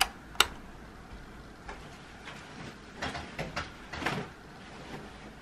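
Laundry being taken off a metal clothes-drying rack: two sharp clicks in the first half-second, then fabric rustling and light knocks of the rack, busiest about three to four seconds in.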